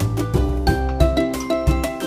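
Upbeat background music: a ukulele song with bright plucked notes over a bass line and a regular beat.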